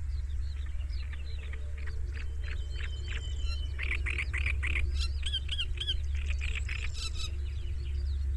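Small songbirds chirping and singing in quick repeated notes, busiest about four to seven seconds in, over a steady low hum.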